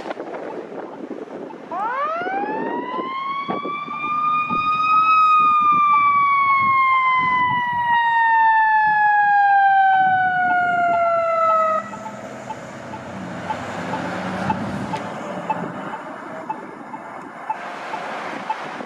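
Fire engine siren giving one long wail. It climbs quickly over about three seconds, then falls slowly for about seven seconds and cuts off sharply, over traffic noise.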